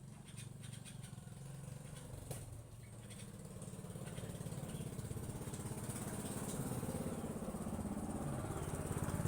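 A small engine running with a low, even pulse, growing steadily louder through the second half.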